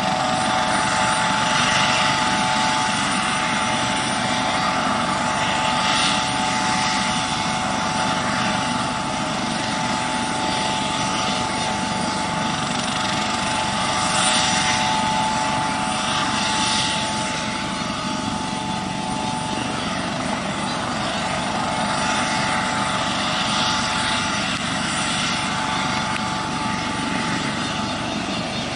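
Eurocopter AS565K2 Panther helicopter running, with a steady turbine whine over the rotor noise. The sound swells and eases a little several times.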